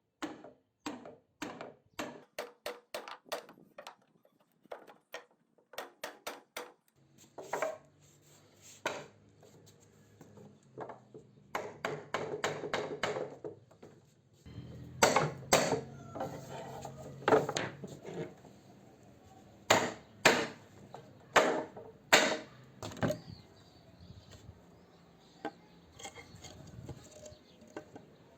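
Sharp knocks on wood during work on an old wooden desk: a quick run of light taps for the first several seconds, then fewer, heavier blows with pauses between them.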